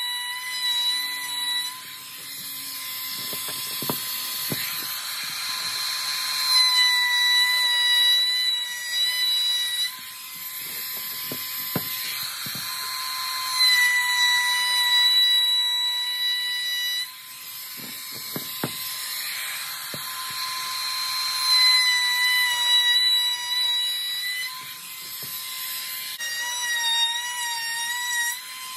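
Cordless random orbital sander running and sanding across a hardwood cutting board, a steady high whine that swells and dips every few seconds as it is pressed and moved over the wood.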